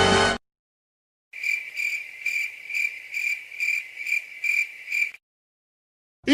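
Stock cricket-chirping sound effect, the classic 'awkward silence' gag: a high chirp pulsing about two and a half times a second for about four seconds. Before it, a music clip cuts off, and a second of silence follows.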